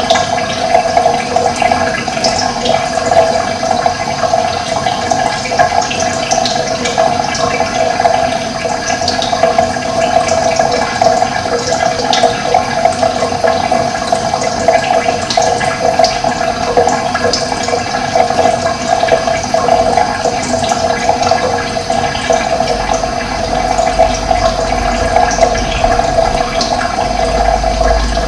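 Running water flowing steadily, a continuous rushing wash like a stream or small cascade. A low rumble joins near the end.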